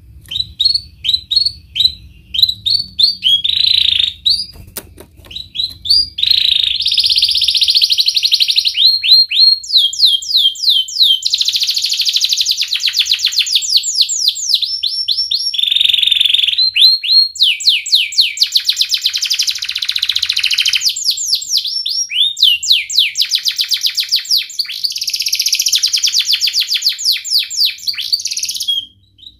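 Yellow domestic canary singing a long, varied song of rapid trills and rolling phrases. It comes in short bursts for the first few seconds, then runs almost unbroken.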